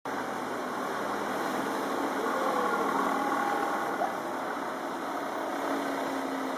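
Street traffic ambience: a steady hum of vehicle engines and road noise, starting abruptly.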